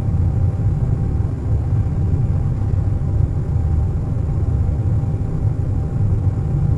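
Airliner cabin noise in flight: a steady, deep rumble of engines and rushing air, with a faint steady tone above it.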